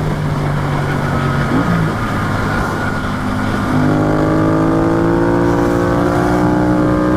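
Yamaha FZ-07's parallel-twin engine running under way with wind rush, heard from the rider's position. It holds steady for a moment, then from about halfway the engine gets louder and the revs climb gradually as the bike accelerates.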